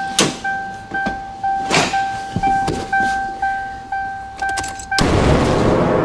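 Ford Thunderbird's warning chime beeping about twice a second with the driver's door open, over knocks and thuds of the door and interior being handled. About five seconds in the chime cuts off and a loud explosion sound effect takes over.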